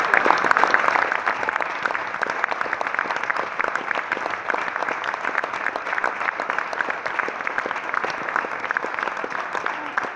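Theatre audience applauding, dense steady clapping that is loudest in the first second and then settles a little lower.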